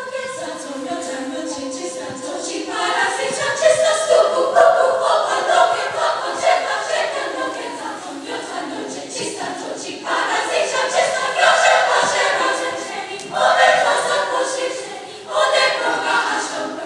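Treble choir of young women singing in parts: one held note at first, then the full choir comes in loudly about three seconds in, with further strong entries after about ten and thirteen seconds.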